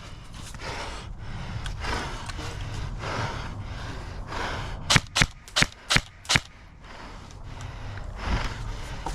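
A few seconds of rustling movement, then six sharp airsoft gun shots about five seconds in, fired singly in quick succession at roughly three to four a second.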